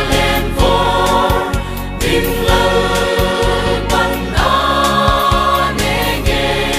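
Church choir singing a Darlong gospel song in held chords, with instrumental accompaniment and a steady beat underneath.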